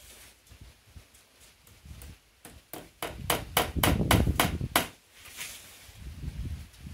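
Hammer driving a nail into a wooden post: a quick run of about ten sharp strikes in the middle, coming faster toward the end.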